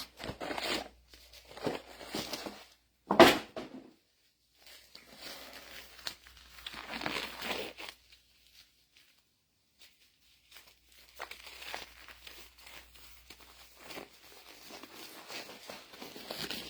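Spray cleaner hissing in several bursts of a second or more onto the oily parts of a disassembled hydraulic pump to wash them down, with handling clatter and one sharp knock about three seconds in.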